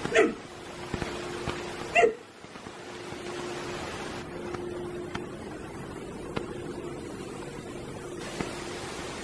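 Whippets barking: two sharp barks about two seconds apart, each dropping in pitch, over a steady hiss of rain.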